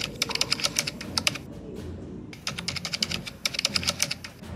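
Keyboard typing sound effect: rapid clacking keystrokes in two quick runs with a short pause between, about a second in.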